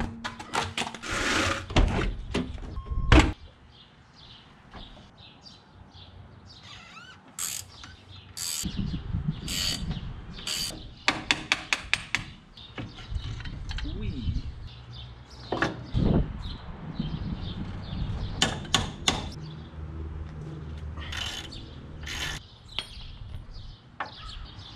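Metal clanks, knocks and ratchet clicking from hand tools as a truck's front wheel is pulled off and the brake and hub behind it are worked on. The loudest knocks come in the first few seconds.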